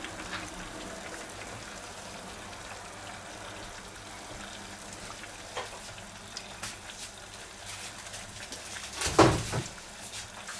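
Battered Twinkie deep-frying in a pot of hot oil at close to 180 °C: a steady sizzling and bubbling with scattered small crackles. A brief louder bump comes about nine seconds in.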